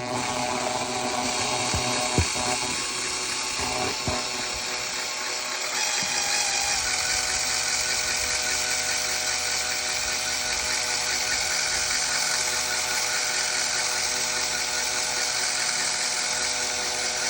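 Electric drill running steadily at speed with an aluminium radio knob chucked in it being buffed with silver polish: a steady motor whine under a rubbing hiss that grows brighter about six seconds in.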